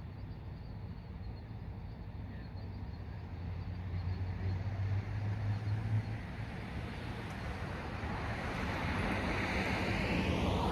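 A car driving past on the road: tyre and engine noise swells over the second half and peaks near the end as it passes close. A steady low hum runs underneath.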